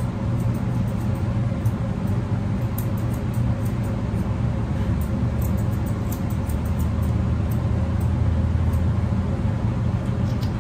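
Grooming scissors snipping the hair on a dog's face in faint, irregular clicks, over a steady low hum.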